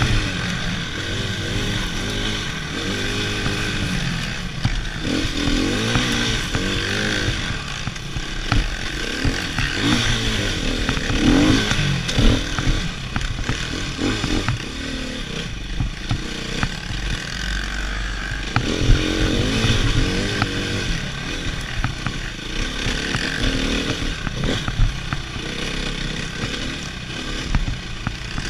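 Dirt bike engine revving up and down as the bike is ridden along a rough trail, with occasional knocks.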